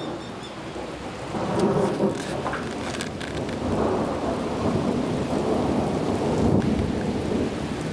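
Heavy rain pouring down on the street and pavement, with a low rumbling that swells louder about a second and a half in.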